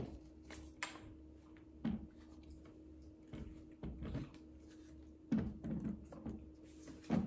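Quiet handling noises of small camera tripods being worked by hand: scattered soft clicks and knocks of plastic and metal parts over a faint steady hum, with a few louder knocks about two seconds in, past five seconds and near the end.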